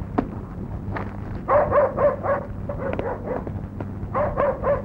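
Dog barking in quick runs of short barks, starting about a second and a half in and again near the end, over a steady low hum.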